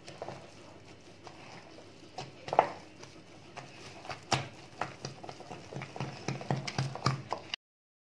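A hand squeezing and working soft cake dough in a glass bowl, with irregular wet squelches and slaps that come faster in the second half. The sound stops abruptly near the end.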